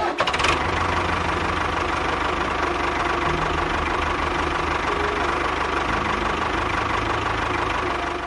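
A small motor on a miniature DIY model tractor or bulldozer running steadily, with a fast even rattle.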